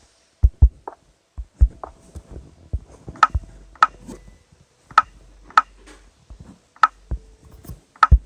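A series of short knocks and taps, about a dozen at uneven intervals, from building work on the fireplace as it is being rebuilt.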